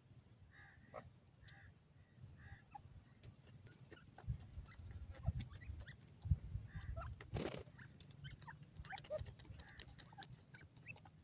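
Grey francolins foraging on dry soil: a few soft, short clucking calls near the start, with many small ticks from pecking and scratching and one louder brief rustle about seven seconds in.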